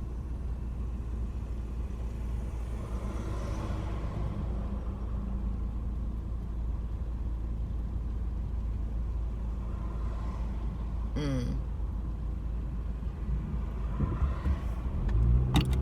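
Steady low rumble of a car's engine and road noise heard from inside the cabin while driving, with a brief high-pitched squeak about eleven seconds in.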